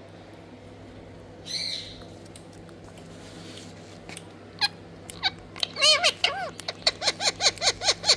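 Rose-ringed (ringneck) parakeet calling: one harsh call about a second and a half in, then a rapid run of short, arched squawks at about four a second toward the end.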